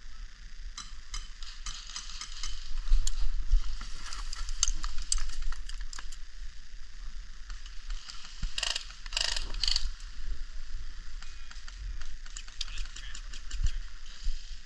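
Airsoft guns firing in rapid bursts: a rattling clatter of sharp clicks coming in irregular runs, heaviest a little past the middle.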